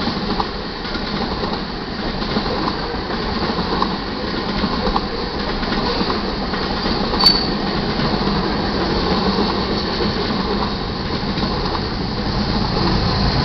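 Covered hopper cars of a freight grain train rolling past: a steady rumble and rail noise from the wheels, with one sharp click about seven seconds in.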